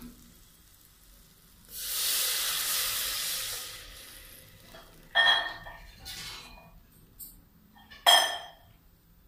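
Water poured from a steel glass into a hot pressure cooker of fried masala, sizzling and hissing for about two seconds. Then two short, ringing metal clinks of steel utensils, about three seconds apart.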